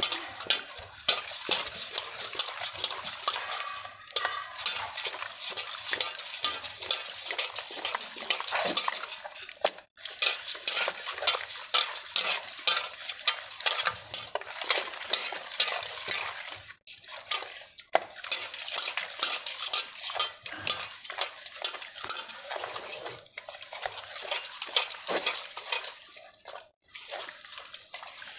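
Salted fish pieces rubbed by hand around a metal basin: a continuous gritty scraping of salt against the metal and fish, stopping briefly three times.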